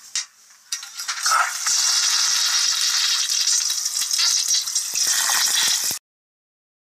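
Toilet flushing: a loud, steady rush of water starts about a second in and cuts off abruptly near the end.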